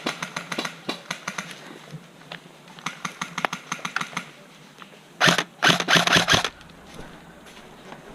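Airsoft rifles firing on full auto in rapid strings of about a dozen shots a second, in two bursts. About five seconds in comes a much louder, closer stretch of noise lasting over a second.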